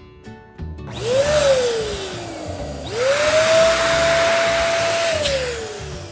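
Electric balloon pump running in two bursts over the hiss of air. About a second in, its motor whine rises, then winds down over about two seconds. It starts again, holds a steady pitch for about two seconds and winds down near the end.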